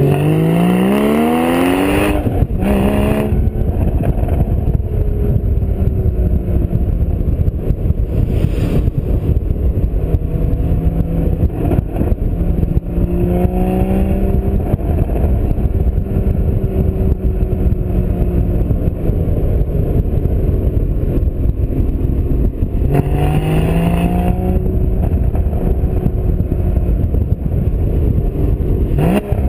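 2016 Porsche Boxster Spyder's flat-six engine pulling under acceleration, its note climbing steeply at the start and again about 23 seconds in, with steadier cruising between. It sits over heavy, steady wind and road noise.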